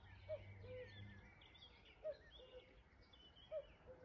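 Common cuckoo calling its two-note 'cuck-oo', the first note short and higher, the second longer and lower. It calls three times about a second and a half apart, faint, with small birds twittering higher up.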